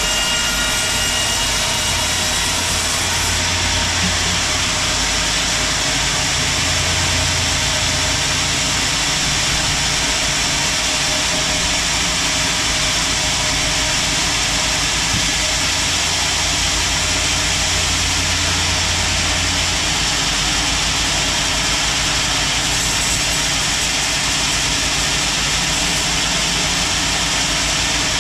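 Sawmill machinery running with a steady, loud mechanical drone, while a large teak log is sawn into thick planks.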